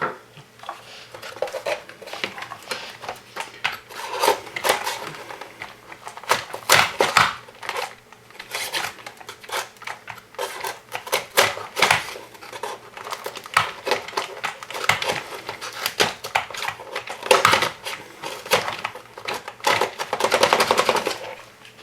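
Irregular clicks, taps and scraping from hand work on small hard parts of a robot chassis, with a denser stretch of scraping near the end.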